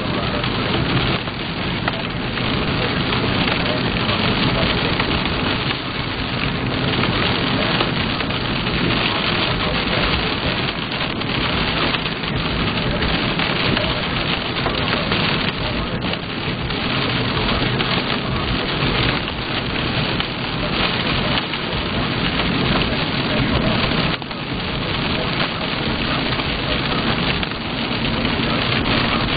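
Heavy rain on the roof and windshield of a moving car, heard from inside the cabin: a steady, dense hiss.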